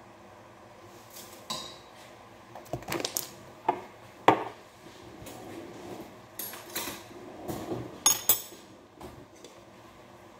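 Kitchen clatter: irregular clinks and knocks of containers, a glass jar and cooking utensils being handled on the counter and pot, loudest about four seconds in and twice in quick succession just after eight seconds.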